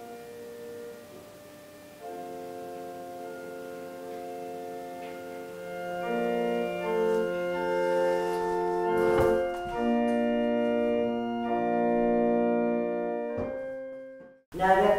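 Organ-like keyboard music: slow, held chords that change every second or two, growing fuller about six seconds in and fading out near the end.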